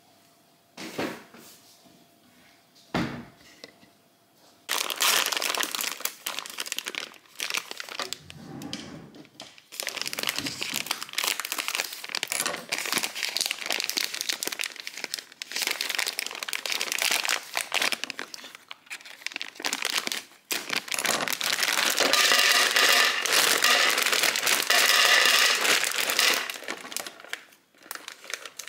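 Two sharp knocks, then a plastic bag of dry penne pasta crinkling continuously as it is handled and opened. Pasta rattles into a clear plastic storage canister, with the densest crackle a little after 20 seconds in.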